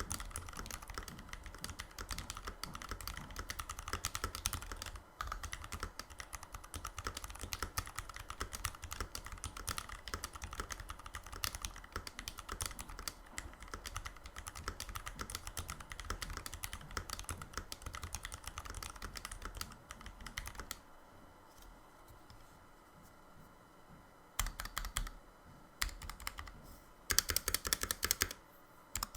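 Typing on the NK65 Entry Edition custom mechanical keyboard, fitted with lubed and filmed Zealios V2 tactile switches and GMK keycaps: fast, steady keystrokes that stop about two-thirds of the way through, followed by two short bursts of keystrokes near the end.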